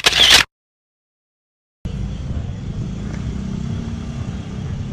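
A short, loud, hissy burst at the start, then a second and a half of dead silence, then steady low outdoor rumble of road traffic.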